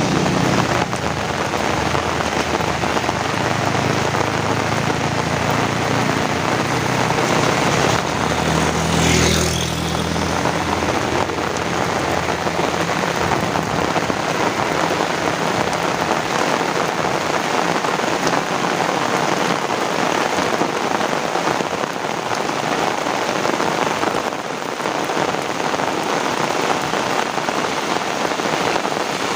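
Heavy rain falling steadily, with a brief low rumble about nine seconds in.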